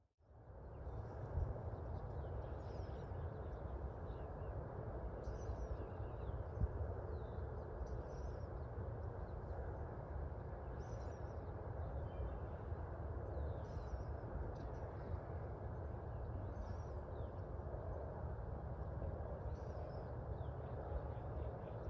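Steady outdoor ambience, a low rumble and hiss, with faint short bird calls every second or two.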